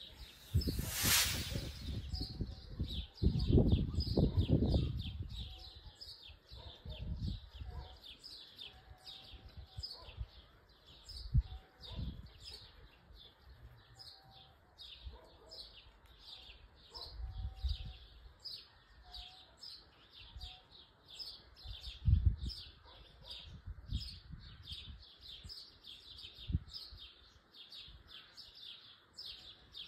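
Short high chirps repeating evenly, about three a second, without a break. A brief loud rushing whoosh comes about a second in, and low gusts of wind buffet the microphone now and then, the strongest a few seconds in.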